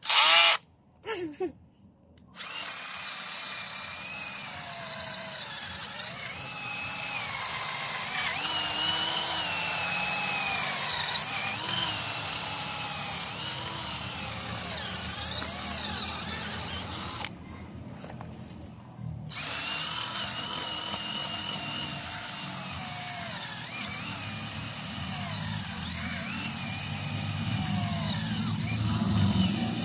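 Cordless battery drill boring into a jackfruit tree root: a few short bursts at the start, then running steadily under load with its pitch wandering up and down, stopping for a couple of seconds a little past halfway before drilling on.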